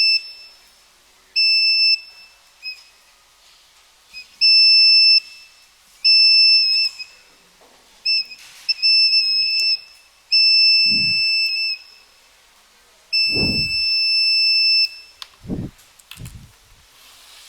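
Electronic buzzer of a laser-beam alarm circuit sounding in about eight high-pitched bursts of uneven length, going off each time the laser beam on the light sensor (LDR) is broken. A few dull thumps in the second half.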